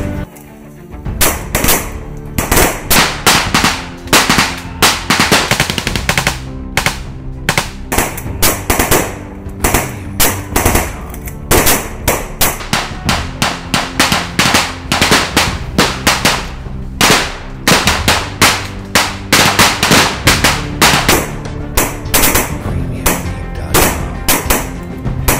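Repeated bursts of rapid automatic gunfire, many shots in quick succession, heard over steady background music.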